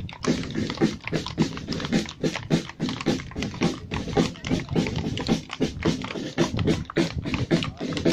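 Horses' hooves clopping on cobblestones: several horses walking, their clops overlapping in an irregular run of several hits a second.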